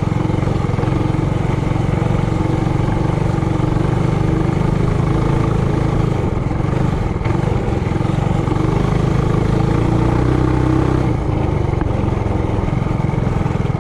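Mini bike's small single-cylinder four-stroke engine running steadily at riding speed, the pitch drifting a little, with a brief drop in level about eleven seconds in as the throttle eases.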